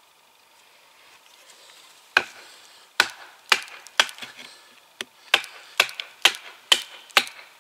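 A large handmade bushcraft knife being driven into dead wood to split firewood: about ten sharp, dry wooden knocks, starting about two seconds in and quickening to roughly two a second.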